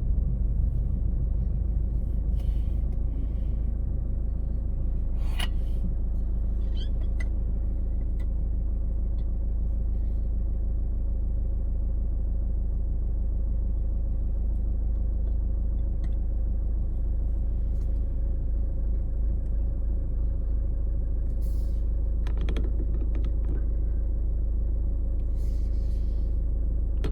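Car driving slowly on city streets: a steady low rumble of engine and tyre noise, with a few faint clicks and short hisses along the way.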